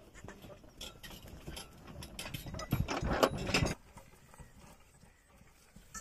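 A bullock cart on the move: a pair of oxen stepping with irregular hoof knocks while the yoke and cart rattle and knock, loudest and heaviest for about a second midway, then quieter.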